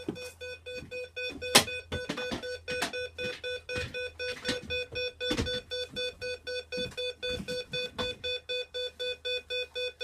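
Burglar alarm keypad beeping rapidly and evenly at about three to four beeps a second: the entry-delay warning after the door of the armed system has been opened. A few knocks and bumps from the door and handling come in the first few seconds.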